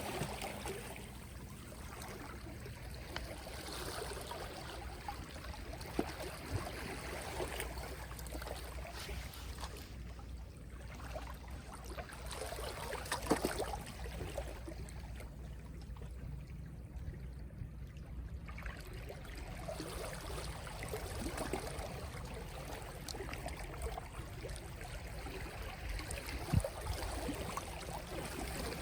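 Small sea waves lapping gently on the shore, rising and falling every few seconds, with a quieter lull about halfway through.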